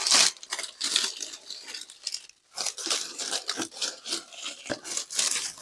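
Artificial leafy vine rustling and crinkling in irregular bursts as it is handled and wrapped onto a compound bow, with one sharp tap near the end.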